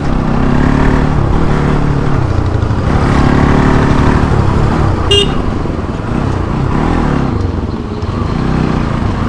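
Bajaj Pulsar NS200's single-cylinder engine through its stock exhaust under riding load, engine speed rising and falling. A vehicle horn toots briefly about five seconds in.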